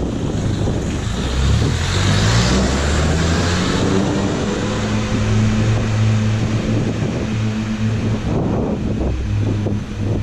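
Kahlenberg K-3H air horn blowing on just its number 2 and 3 straight bells, the number 1 bell blocked off: a loud, deep, continuous horn chord. Its pitch shifts during the first few seconds, then holds steady.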